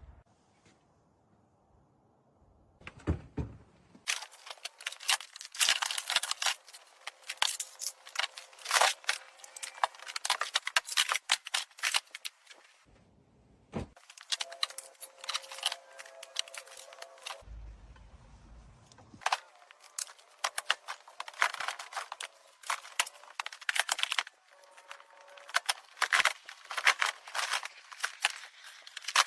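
Dense, irregular clatter and clicking of tools and small hard items being handled and set down, with a few short pauses.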